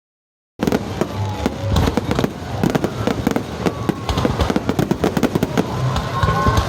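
Fireworks going off: a dense, rapid run of sharp crackling pops that starts about half a second in.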